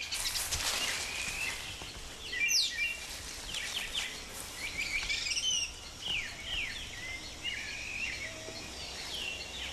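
Rainforest ambience: several birds calling with short chirps and downward-sliding whistles, one high sweep falling steeply about two and a half seconds in, over a steady background hiss.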